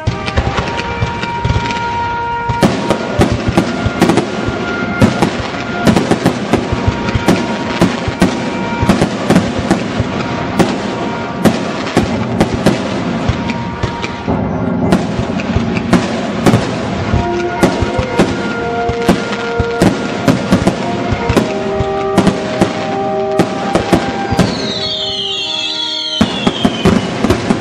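Aerial fireworks shells bursting in a rapid, near-continuous run of bangs, with music playing underneath.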